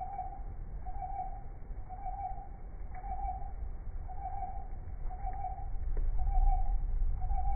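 A short hooting tone of one steady pitch, repeating evenly about once a second, over a low rumble that swells near the end.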